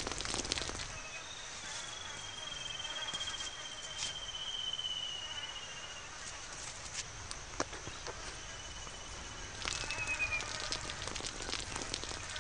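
Quiet outdoor ambience with a high, wavering trill held for about five seconds that dips slightly at its end, then two shorter trills a few seconds later. Scattered soft clicks and crackles run under it.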